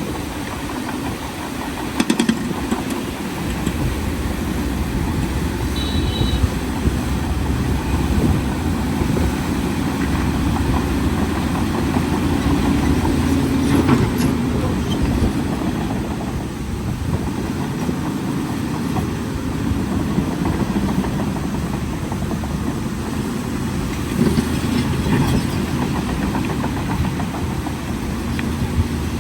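Bulldozer's diesel engine running steadily, with a few sharp metallic knocks along the way.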